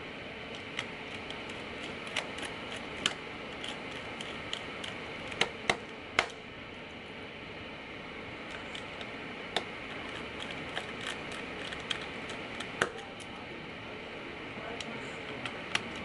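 Small metallic clicks and taps of a precision screwdriver driving the hinge screws into a laptop chassis, irregular throughout, with three louder clicks about five and a half to six seconds in, over a steady low hiss.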